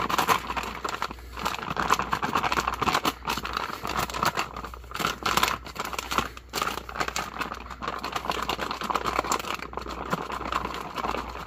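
Sealed ration meal pouch crinkling as it is shaken and kneaded by hand to mix the hot water in. There are a few brief pauses.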